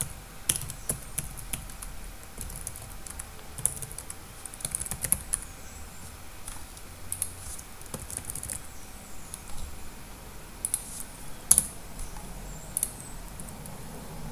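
Typing on a computer keyboard: irregular runs of keystroke clicks while payment card details are entered, with one sharper click about eleven and a half seconds in.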